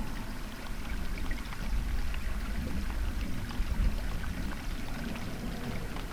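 Wind buffeting the microphone in a snowstorm, an uneven low rumble that swells and eases.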